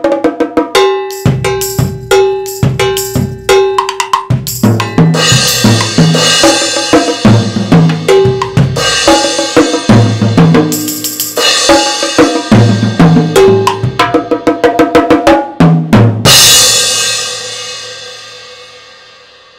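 Multi-percussion solo played with sticks on toms, bongos and a suspended cymbal: fast, dense strokes, with a repeated high ringing note in the first few seconds, then cymbal wash over the drums. About sixteen seconds in, a final cymbal crash rings out and slowly fades away, ending the piece.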